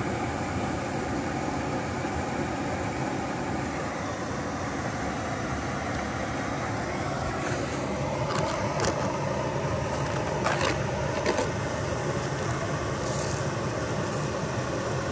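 Steady rushing of a small creek waterfall spilling over a low dam. Several knocks and rubs of a hand on the camera's microphone come through from about halfway in, as the camera is handled and set down.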